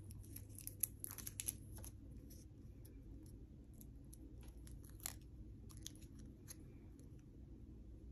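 Faint crackles and clicks of a Color Street dry nail polish strip being peeled from its plastic backing between the fingers, most of them in the first two seconds, with a sharper click about five seconds in.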